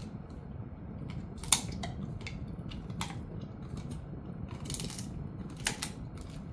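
Jindo-mix dog gnawing a rib bone: irregular sharp clicks and cracks of teeth on bone. The loudest crack comes about a second and a half in, and a cluster of cracks comes near the end.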